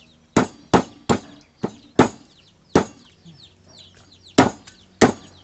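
Meat cleaver chopping a large silver barb into sections on a wooden chopping block: about eight sharp, separate chops at an uneven pace, with a longer pause a little past the middle.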